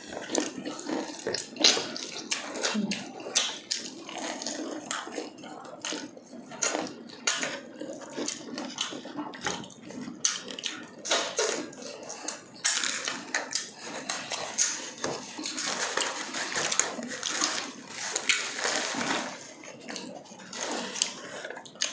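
Eating crispy fried chicken: crunching of the fried breading and chewing, as a dense run of small crackles and clicks.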